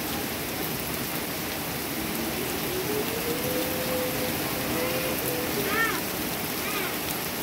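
Heavy rain pouring steadily onto a pond and wet decking, an even hiss. A few faint short calls sound over it in the second half.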